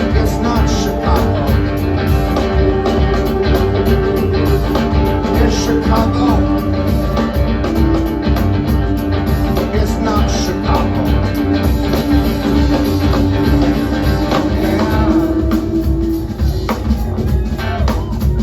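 Live rock band playing an instrumental stretch between sung lines: a steady drum beat with a long held note over it that stops near the end.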